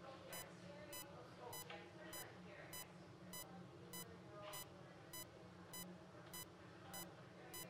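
Bedside patient monitor giving a faint, steady beep a little under twice a second, the pulse tone keeping time with the patient's heartbeat. Faint rustles of instruments being handled on the procedure table come in between.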